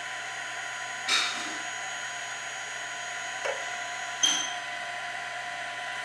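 Printrbot Play 3D printer running with a steady mechanical whine made of several held tones. Three short knocks break over it, about one second in, at three and a half seconds, and the loudest just after four seconds.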